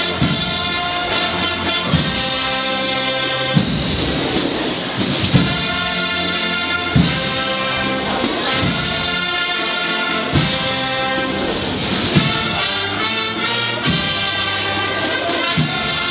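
Brass band playing a slow Holy Week processional march, its trumpets and trombones holding long chords over a heavy drum stroke about every 1.7 seconds.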